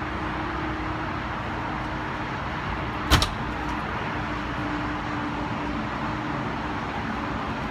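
A motel room door swinging shut with a single sharp bang about three seconds in, over steady background noise.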